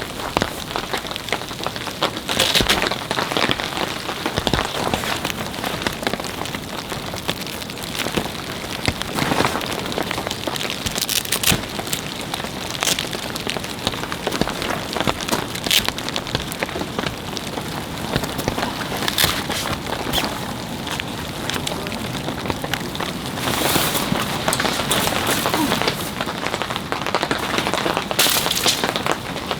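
Winter rain pouring steadily, with many sharp, irregular drop strikes standing out from the constant hiss.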